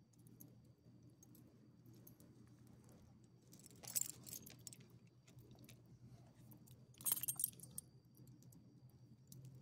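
Metal ID tags on a small dog's collar jingling in two short bursts, about four seconds in and again about seven seconds in, as the dog squirms while being petted, over a low steady hum.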